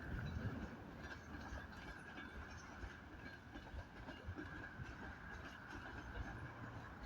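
Ship's engines running: a steady low rumble with a faint constant whine above it and scattered light clicks.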